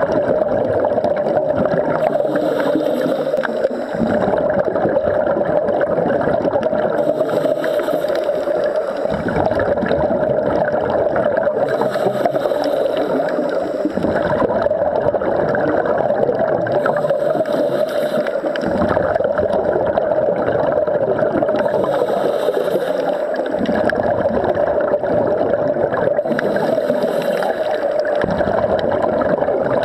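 Underwater sound of scuba divers breathing through their regulators: a burst of exhaled bubbles gurgling about every five seconds over a steady watery hiss.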